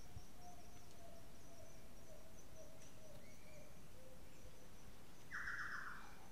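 Quiet outdoor nature ambience: faint steady high chirping and a faint tone falling slowly in pitch, with one short louder call about five seconds in.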